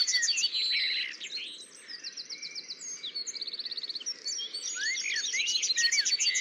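Several birds chirping and calling at once: quick runs of repeated high chirps, short rising whistles and a fast trill about halfway through.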